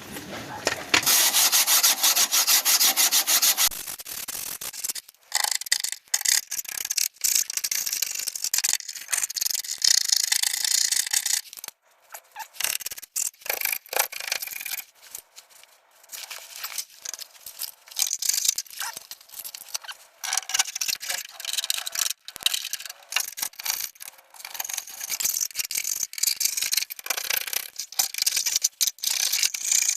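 Rough scraping strokes against the car's underbody, stripping off old rust and undercoating. A long, loud run of fast strokes in the first few seconds, then shorter, uneven strokes with brief pauses.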